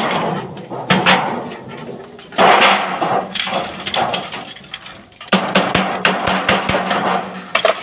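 Hammer knocking on a sheet-metal gutter as the corner is formed: irregular runs of sharp knocks, closely bunched in places.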